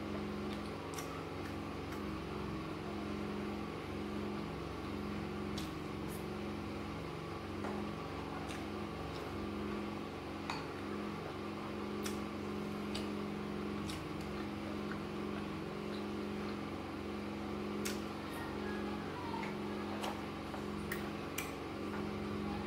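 A steady machine hum with a few held low tones, with scattered light clicks and taps of a spoon working in a glass bowl of gari soaked in water.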